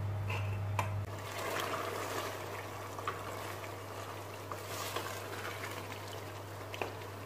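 Thick pasanday meat curry bubbling in a pot while a wooden spoon stirs through it, with a few light clicks of the spoon against the pot. A steady low hum runs underneath.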